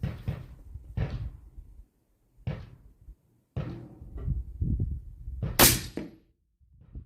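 A string of irregular knocks and thumps, then one much louder sharp crack about five and a half seconds in.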